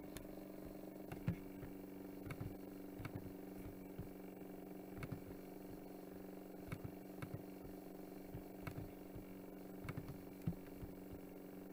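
Faint steady electrical hum, with scattered soft clicks of a computer mouse at irregular intervals.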